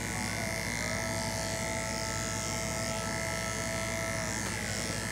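Andis two-speed electric clipper running at a constant buzzing hum as it clips an English Angora rabbit's dense wool.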